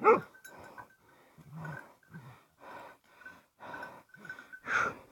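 Hard, rhythmic animal breathing from hounds and a wild boar locked in a fight, about two breaths a second, with a short loud pitched cry right at the start and a stronger breath near the end. A faint thin high tone comes and goes underneath.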